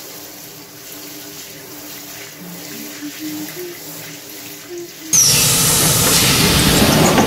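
Shower water running onto the floor of a bathtub, a steady hiss. About five seconds in it gives way to a much louder, steady rushing noise where a train door is being opened.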